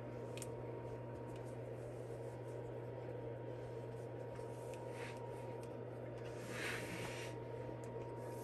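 Soft rustling and rubbing of yarn and knitted fabric being handled, with a louder rustle about two-thirds of the way through, over a steady low hum.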